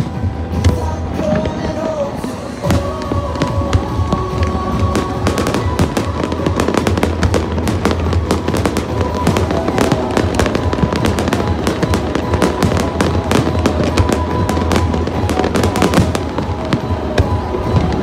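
Aerial fireworks going off in a rapid run of bangs and crackles, thickest through the middle of the stretch, with music playing underneath.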